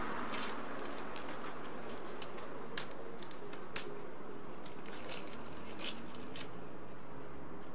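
Scattered light clicks and taps as equipment and cables are handled in the back of a van, over a steady low hum.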